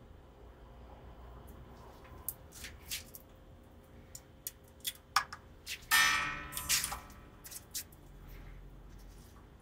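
A thin steel guitar string, the high E, being handled and fed toward an electric guitar's tuning post: light metallic ticks and clicks, with a louder scraping, ringing zing of the wire about six seconds in.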